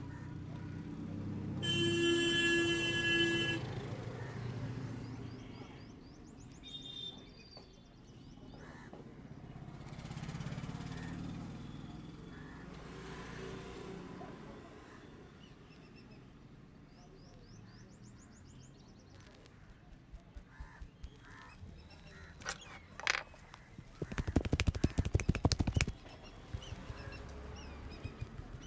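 A vehicle horn sounds once for about two seconds over street background noise near the start. Later come scattered sharp taps and then about two seconds of rapid slapping, the barber's hands drumming on the head in an Indian head massage.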